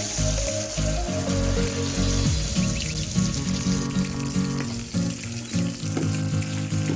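Food frying in hot oil in a pan, a steady sizzle, over background music with a low, stepping bass line.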